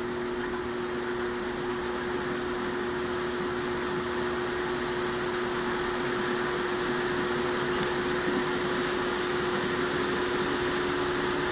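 Toshiba AW-404 fully automatic washing machine running with a steady, slightly swelling hum and whooshing noise, one short click about eight seconds in. This is the abnormal noise the machine makes since it was carried lying on its side, which the owner thinks is no real problem.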